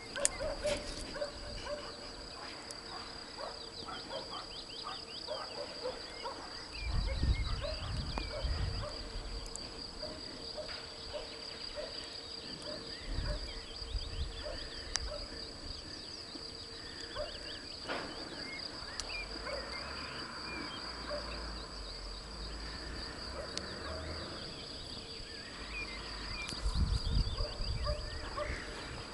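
Rural outdoor ambience: many small birds chirping and calling over a steady, high, pulsing insect trill. A few short low rumbles on the microphone come about seven seconds in, around thirteen seconds, and near the end.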